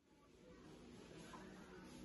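Faint, even background ambience fading in over about half a second after complete digital silence, with a faint low hum.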